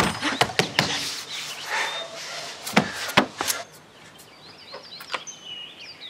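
Knocking on the door of a construction-site trailer: a quick run of knocks at the start, then a few more about three seconds in. Birds chirp in the last couple of seconds.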